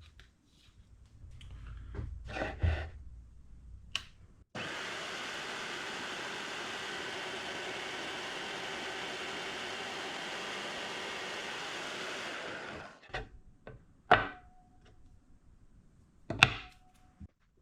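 Power saw cutting a length of 12L14 steel square bar stock, a steady run of about eight seconds that starts suddenly and dies away. Two sharp metal clinks follow, each with a short ring.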